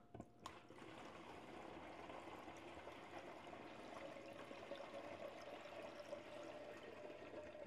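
Copepod culture water poured from a culture bag through a fine sieve set in a bucket: a faint, steady pour that starts about half a second in and eases off near the end.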